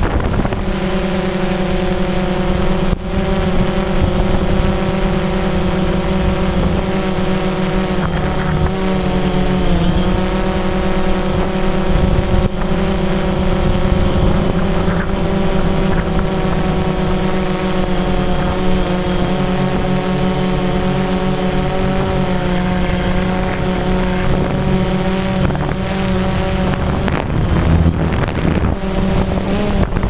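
DJI Phantom quadcopter's electric motors and propellers whining steadily, heard from the camera on board, with a few slight dips and wobbles in pitch as the rotors change speed.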